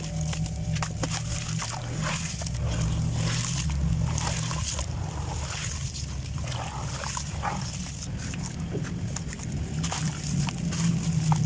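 Hands squeezing and crumbling wet, gritty sand blocks in a basin of water: the water sloshes and splashes, and the grit crackles and patters as it falls into it. A steady low hum runs underneath.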